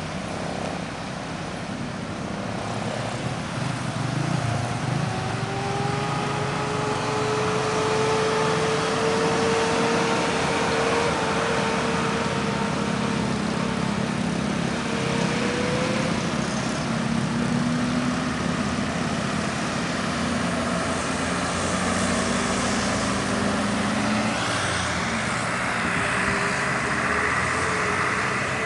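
Road traffic passing close by: cars, motorcycles and trucks with engines running and tyres on the road. An engine note slowly rises in pitch through the middle, like a vehicle pulling up the grade.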